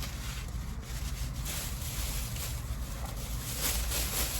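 Steady low rumble inside a parked car, with soft rustling of a food container being handled near the end.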